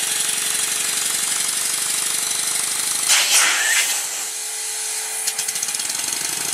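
Stuart Score model steam engine running on compressed air, a steady fast mechanical clatter. About three seconds in comes a brief, louder hiss of escaping air as the air supply is switched to the other cylinder.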